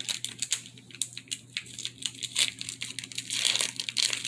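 Crinkling and crackling of a Pokémon card pack wrapper being worked open by hand, a fast irregular run of crackles that thickens near the end, over a steady low hum.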